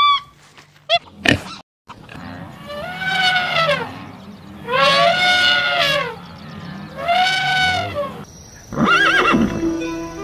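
Three long animal calls, about a second each and evenly spaced, each rising then falling in pitch. They are preceded by a short sweep about a second in, and a different sound starts near the end.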